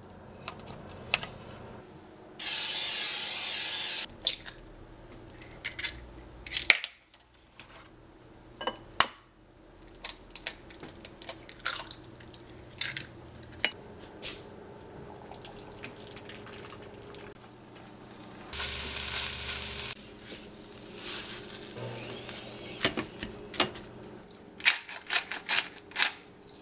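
Scrambled eggs being cooked in a frying pan: two loud bursts of hissing, and clinks and knocks of utensils and dishes against the pan. Near the end, a pepper grinder is turned over the plated eggs and gives a quick run of clicks.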